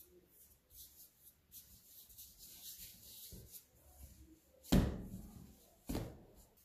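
Hands rolling a log of yeast dough on a floured stainless-steel worktop: faint rubbing swishes, then two loud thuds a little over a second apart as the dough is slapped down on the steel, the first the louder.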